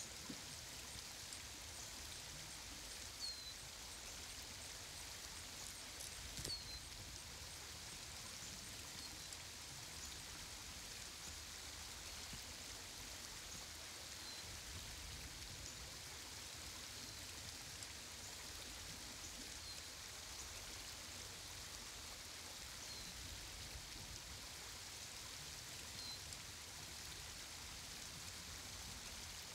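Faint outdoor ambience: a steady hiss, with a small bird's short, high, falling chirp every few seconds. Two soft knocks come about three and six seconds in.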